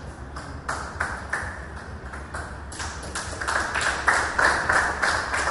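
A run of sharp, irregular taps, a few at first and then coming thicker and louder from about three seconds in, over a low steady hum.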